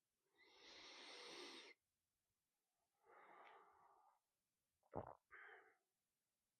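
Faint, slow breathing: two long breaths of about a second and a half each, then a short sharp puff and a brief breath near the end.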